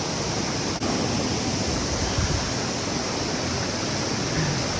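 Steady rush of cascading water, an even hiss with a brief dropout about a second in.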